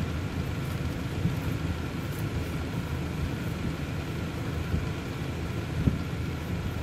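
Steady low rumble of a car heard from inside the cabin, with a faint steady hum above it and one short click near the end.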